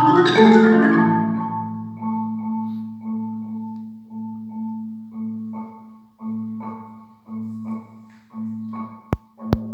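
Marimba played with mallets: a loud, bright accented stroke at the start, then a slow line of single struck notes over ringing low tones. Two sharp clicks come near the end.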